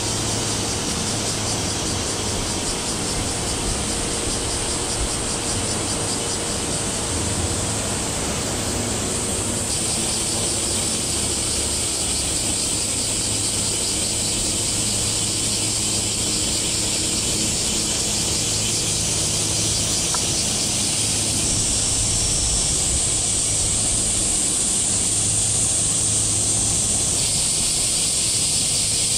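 Steady, high-pitched buzzing of summer cicadas, with a low, steady drone from the passing car carrier underneath.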